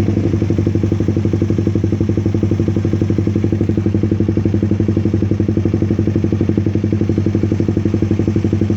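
Suzuki Raider 150 (carburetor model) four-stroke single-cylinder engine idling steadily through an HGM open exhaust pipe, with loud, even exhaust pulses.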